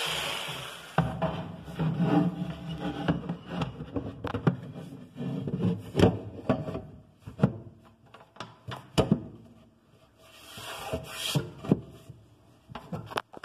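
Cabinet panels being handled and fitted: irregular wooden knocks, clicks and rubbing, with a short scraping stretch about two-thirds of the way through.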